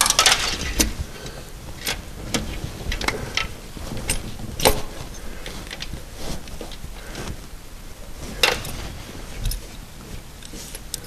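Irregular metallic clicks and knocks of a 123 electronic distributor being pushed by hand into a Volvo engine block and settled into its clamp, engaging the oil pump drive. The sharpest knocks come just before five seconds in and about eight and a half seconds in.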